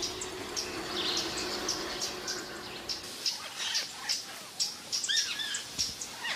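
Forest ambience of birds chirping: many short, high chirps repeating quickly, with a louder two-note call that curves downward about five seconds in. A steady low tone sits under the first half.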